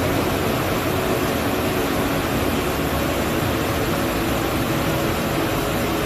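Water of a small waterfall spilling over a rock ledge into a pond, a steady, even rushing.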